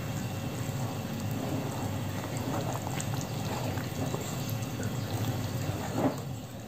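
Wire whisk stirring thin rice-flour batter in a bowl: a steady, wet stirring and sloshing sound.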